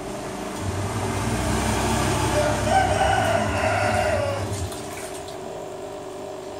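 A rooster crowing once, a single long call of about two seconds that sags in pitch at its end, over a steady low hum that fades out shortly after.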